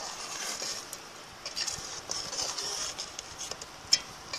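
Lemons boiling in thick sugar syrup in a metal pot, bubbling and hissing as a spoon stirs them, a late stage of cooking lemon marmalade until the fruit browns. A sharp click near the end, the spoon knocking the pot.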